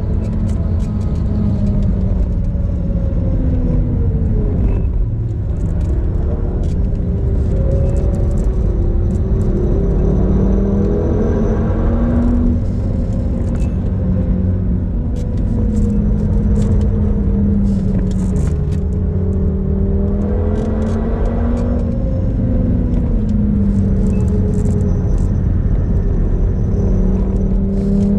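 Tuned 2013 Audi TT RS (8J) turbocharged 2.5-litre five-cylinder engine, at about 405 hp, working hard at high revs, heard from inside the cabin. Its pitch climbs steadily under full throttle and drops sharply three times as the driver lifts and brakes for corners, with tyre and road noise underneath.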